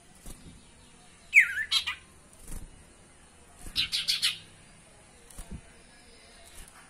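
Caged common iora (cipoh/sirtu) calling: a sharp note gliding in pitch about a second and a half in, then a quick burst of rapid chattering notes about four seconds in. A few faint knocks come as it hops about the perch.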